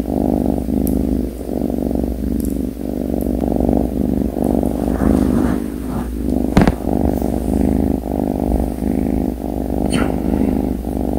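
Sleeping kitten purring steadily and loudly, close up. One sharp knock comes about six and a half seconds in.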